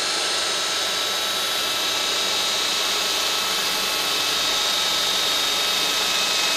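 Cordless drill driver in drill mode boring a 6 mm arrowhead-tip multipurpose drill bit through ceramic tile: a steady, high-pitched motor whine over the grinding of the bit in the tile.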